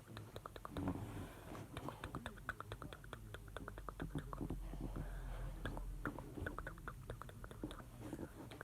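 A dense run of small close-up clicks and taps, many per second, over a steady low hum.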